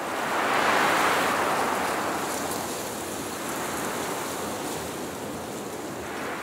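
A rushing wash of noise like wind or surf, swelling up in the first second and slowly dying away.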